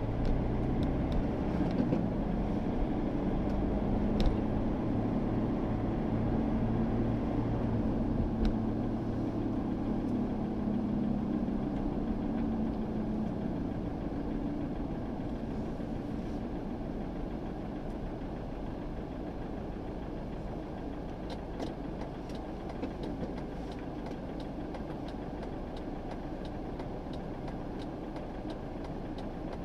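Car engine and road noise heard inside the cabin while driving. A low engine hum is strongest for the first half, then eases off as the car slows and stops, leaving a quieter steady rumble, with a few sharp clicks.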